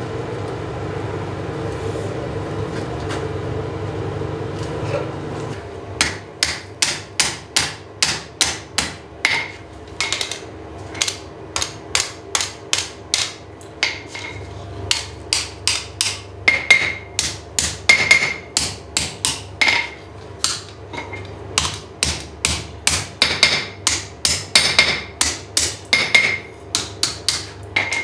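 A steady roar from the forge for about the first six seconds, then a hand hammer striking hot square steel bar on the anvil, about two to three blows a second, many with a bright anvil ring: the split bar being forged open into the arms of a one-piece cross.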